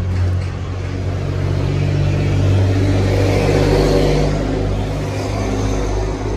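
Motor vehicle engine running close by, with a steady low hum, swelling louder in the middle as traffic passes on the street.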